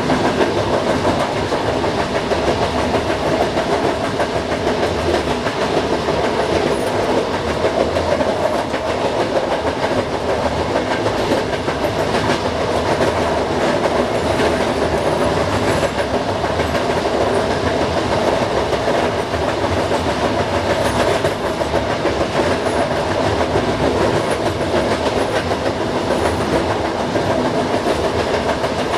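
Passenger train running at speed, heard from inside: a steady rumble of steel wheels on the rails, with the clatter of the wheels over the track.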